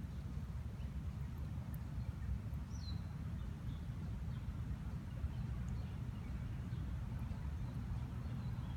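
Outdoor background of wind buffeting the microphone: a steady low rumble, with a single faint bird chirp about three seconds in.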